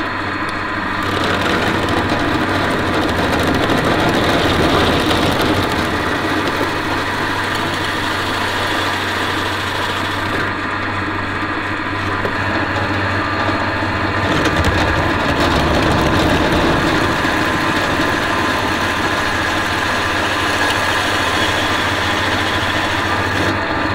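Pillar drill press running steadily, its bit cutting holes through a thin aluminium sheet backed by wood.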